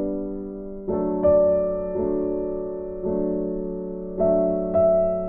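Background music: a soft piano or electric piano playing slow sustained chords, a new chord struck about once a second and left to fade.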